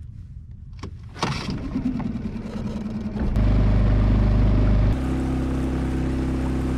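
Microskiff's small outboard motor starting about a second in, then throttling up near three seconds as the skiff gets under way, and settling into a steady, even run from about five seconds.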